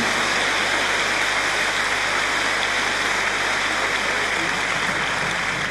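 A large arena audience applauding steadily, the dense, even clatter of many hands clapping at once.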